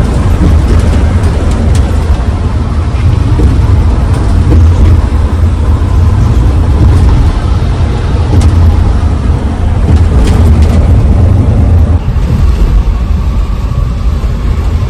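Steady low road and tyre rumble inside the cabin of an Olectra C9 electric coach cruising at highway speed.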